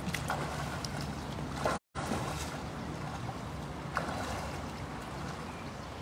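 Water sloshing and dripping as a cast net is gathered up and handled in shallow river water, with a few brief swishes, over a steady low hum. The sound drops out for a moment just under two seconds in.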